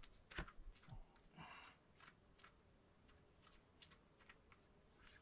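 Near silence with a few faint scuffs and taps, mostly in the first couple of seconds: a climber's hands and shoes on the sandstone boulder.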